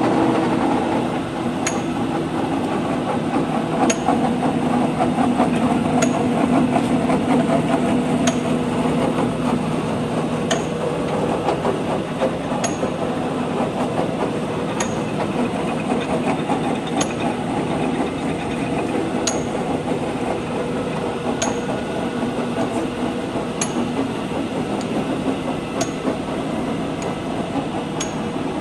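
LeBlond 20-inch by 48-inch engine lathe running steadily under power, with a sharp tick about every two seconds.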